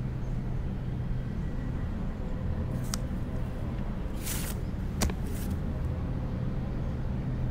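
Steady low traffic rumble, with a card sliding into the slot of a wall-mounted metal letterbox about halfway through and a sharp click from the box a moment later.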